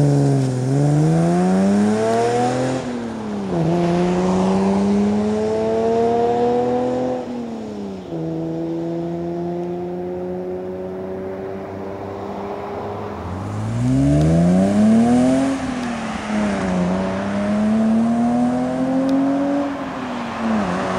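Inline-six car engine accelerating through the gears of a manual gearbox. Its pitch climbs and drops at shifts about three and eight seconds in, holds steady for a few seconds, then climbs and falls twice more.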